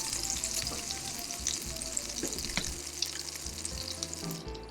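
Olive oil sizzling and crackling in a frying pan, a steady hiss with scattered pops that fades out near the end.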